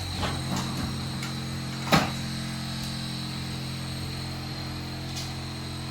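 Steady low electrical hum of a running machine, with one sharp click about two seconds in.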